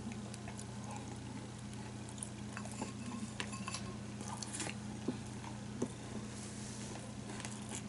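Wooden chopsticks clicking lightly against a ceramic bowl and quiet chewing of soft simmered fish, a few sharp ticks scattered through, over a steady low hum in the room.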